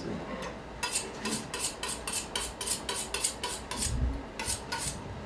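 Long slicing knife worked back and forth along a raw salmon fillet on a cutting board, trimming away the thin dorsal fat: quick repeated scraping strokes, several a second, starting about a second in, with a low thump near four seconds.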